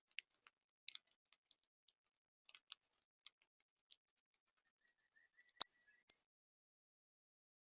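Small birds chirping: scattered short, high chirps, the two loudest about five and a half and six seconds in.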